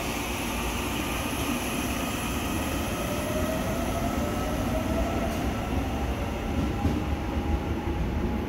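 Electric subway train running on the track with a steady low rumble. A motor whine rises in pitch from about three seconds in.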